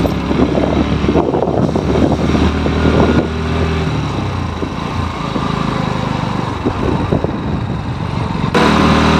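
Motorcycle engine running as the bike rides along a rough, wet road, with an uneven rumble over the engine. Near the end the sound changes abruptly to a louder, steadier engine note.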